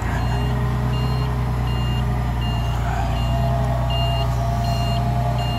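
Forklift's warning beeper sounding a steady series of short high beeps, about one every three-quarters of a second, over the steady drone of the forklift's engine.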